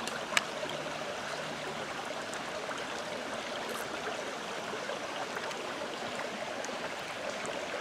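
Creek water flowing steadily, a continuous even rush. A spoon clinks once against the plate about half a second in.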